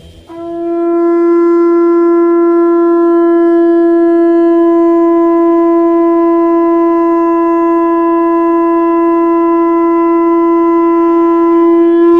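Conch shell (shankh) blown in one long, steady note that swells up in the first second and is held without a break for about twelve seconds.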